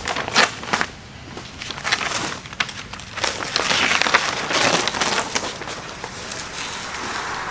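Masking tape and masking paper being peeled off a car's side window: a few short sharp rips near the start, then a longer, louder stretch of paper crinkling in the middle as the sheet comes away.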